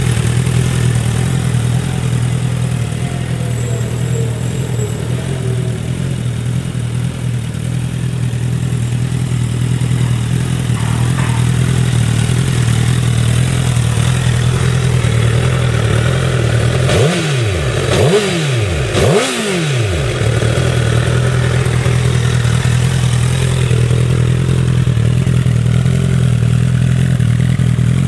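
Honda CBR1000RR (SC59) inline-four idling steadily through a TSR aftermarket muffler, blipped twice in quick succession about two-thirds of the way through, the revs rising and falling back to idle each time.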